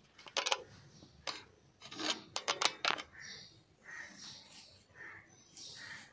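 Handling noise of a phone being set up to record: several sharp knocks and clicks with some rubbing over the first three seconds. After that come faint high chirps repeating about once a second.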